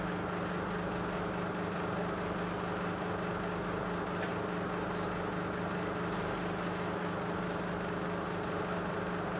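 A steady, even machine hum with a low tone and a hiss beneath it, unchanging throughout.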